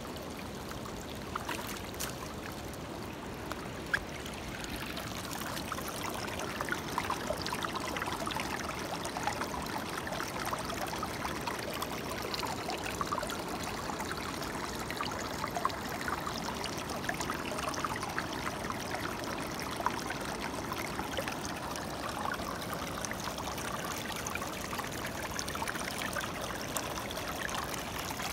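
Creek water rushing and trickling over a gold-prospecting sluice box, with scattered small ticks; it grows a little louder about five seconds in.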